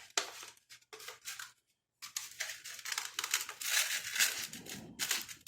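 Sandpaper rubbed by hand over the splines of a plastic cog: repeated rasping strokes, with a short pause about a second and a half in.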